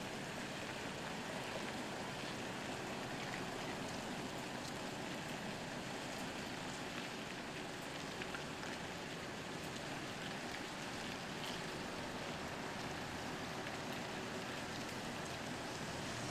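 Heavy-haulage truck slowly manoeuvring a multi-axle low-loader, its diesel engine heard as a steady, even low rumble and hiss with no changes in pace.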